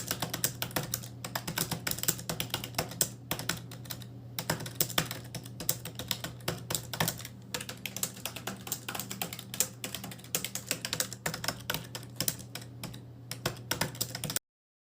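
Fast typing on a computer keyboard: a dense, rapid run of key clicks with a few brief pauses, over a faint low steady hum. The typing stops abruptly near the end.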